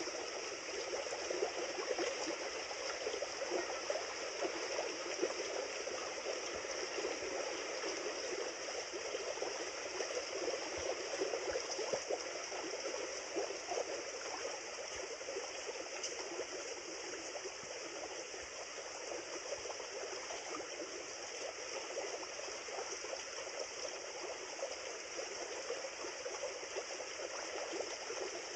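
River water flowing steadily, an even rush of moving water with no breaks.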